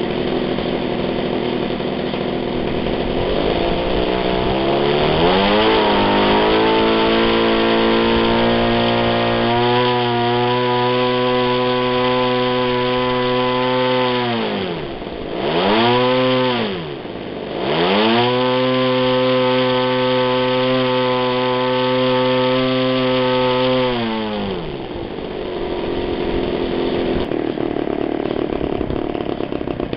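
24cc two-stroke engine driving a propeller, revving up from a low run to a steady high speed. It is throttled down sharply twice and picks straight back up, then drops back to a low idle near the end.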